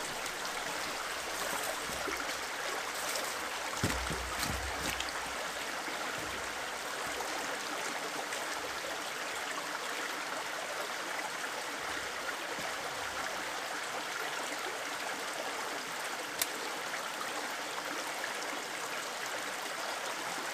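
Small forest stream running steadily over stones, with a couple of short sharp clicks about four seconds and sixteen seconds in.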